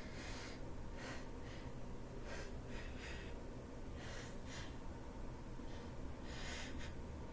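A person with a head cold sniffling and breathing through a congested nose: a string of soft, short sniffs and breaths, about ten in all.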